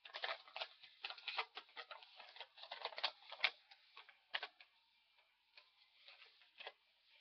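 Paper crinkling and rustling as a shopping receipt is hunted out and handled: irregular sharp crackles, busiest in the first three and a half seconds, then sparser.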